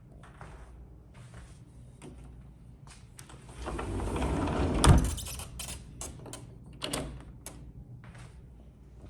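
A door sliding and shutting with a single loud thud about five seconds in, followed by a few light clicks and knocks.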